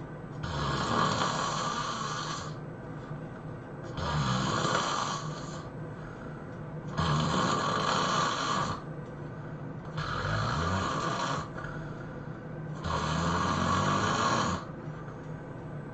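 A person snoring heavily while asleep: five loud snores at an even rhythm of about one every three seconds, each lasting around a second and a half to two seconds, with quieter breathing between them.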